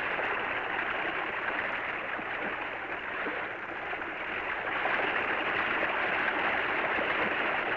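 Cartoon sound effect of rushing water, a steady even noise that holds throughout.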